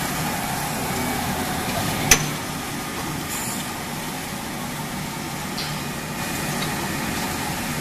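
Steel-bar production line with a WXC80S peeling machine and a JY100 straightening machine running: a steady mechanical noise, with a single sharp knock about two seconds in.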